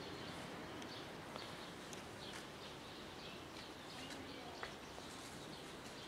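Quiet outdoor background noise with faint, scattered short high chirps and a few soft clicks.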